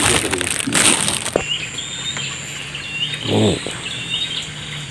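Rustling handling noise on the microphone for the first second or so, then a small bird calling over and over: short high chirps, each a quick rising note that levels off, every half second to a second. A brief low vocal sound comes about three seconds in.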